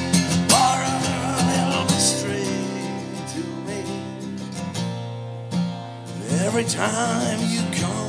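Live acoustic guitar strumming at the close of a song, with a wordless vocal line about half a second in and again near the end.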